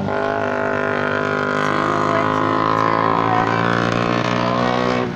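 Truck engine droning at a steady speed while riding, a continuous many-toned hum that dips briefly near the end.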